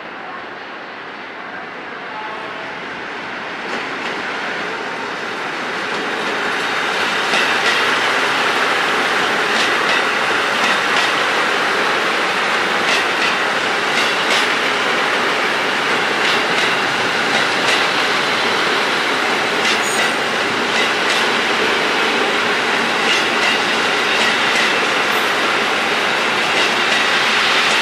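JR Central KiHa 85 series diesel multiple unit running past on the tracks. Its noise grows louder over the first seven seconds or so as it comes closer, then holds steady as the cars pass, with repeated clicks from the wheels on the rails.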